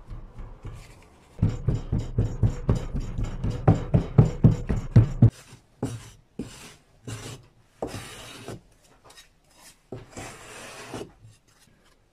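A fast run of loud, dull thuds as molding sand is rammed into a wooden foundry flask with a metal-headed rammer. This stops suddenly about halfway and gives way to about five scraping strokes of a metal strike-off bar dragged across the sand to level the top of the mold.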